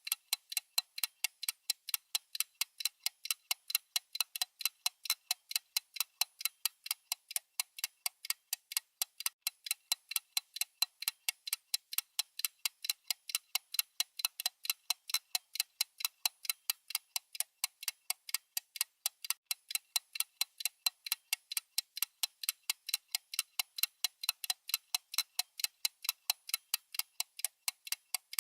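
A watch ticking fast and evenly, several sharp ticks a second, the beat of a mechanical watch's balance and escapement.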